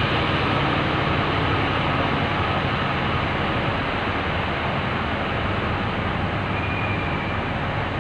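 Steady running noise of a rail work vehicle moving along the track, its engine running and wheels rolling on the rails, even in level throughout.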